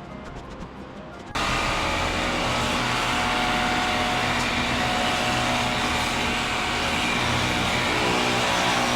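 Battery-powered pressure washer switched on about a second in, then running steadily, its motor and pump giving a loud, even whine over the hiss of the spray.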